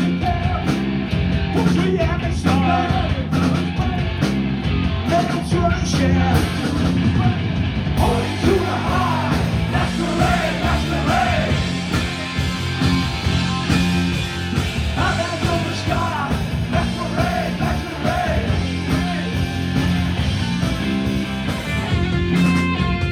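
Live punk rock band playing, with guitars, bass and drums keeping a steady beat.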